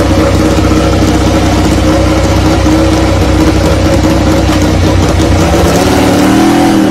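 Pramac Ducati Desmosedici MotoGP bike's V4 engine running loudly at a steady high idle on the grid stand, its note shifting with small throttle changes near the end.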